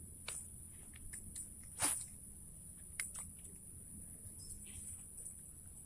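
Steady high chirring of insects such as crickets, with a few sharp clicks from handling a fishing rod and spinning reel; the loudest click comes about two seconds in.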